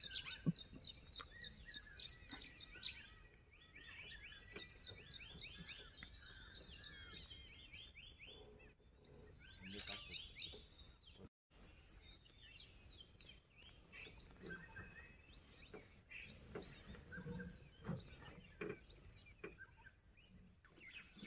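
Several birds singing: a rapid run of high, repeated notes for the first few seconds and again from about four to seven seconds, with a second, lower series overlapping, then scattered single calls and chirps.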